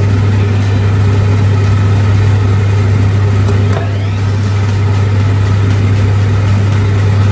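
A loud, steady hum: a strong low drone with an even hiss above it, unchanging throughout.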